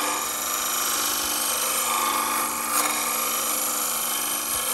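Chisel scraping a bead into a wooden spindle spinning on a Shopsmith lathe: a steady, loud rasping cut over the hum of the running machine.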